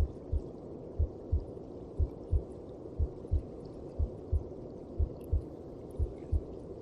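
A mother's heartbeat as heard from inside the womb, beating steadily at about one beat a second. Each beat is a low double thump, lub-dub, over a constant muffled whoosh.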